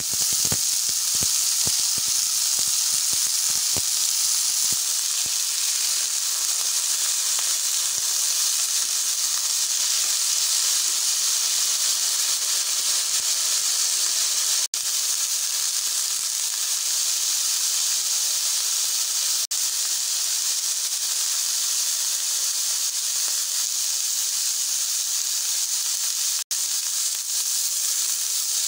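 Cauliflower florets and potato sticks frying in hot oil in a wok: a loud, steady sizzling hiss, with spitting crackles in the first few seconds. The sound drops out for an instant three times.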